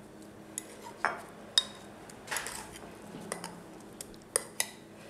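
Metal fork clinking lightly against a glass dish while it turns pieces of cassava mash in wet egg batter: several sharp clicks with soft wet stirring between them.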